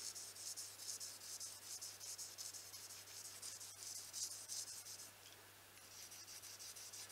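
Mercator knife blade stroked quickly and lightly along 5000-grit sandpaper on a flat block, a faint scratchy rasp of many short strokes that eases off for a moment about five seconds in. The edge is being honed up to shaving sharpness.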